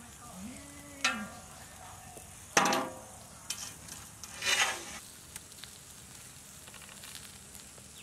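Metal skewers of roasted whole chickens being set down on a large metal plate: two sharp ringing clanks about a second and a half apart, then a shorter scrape, over a steady sizzling hiss.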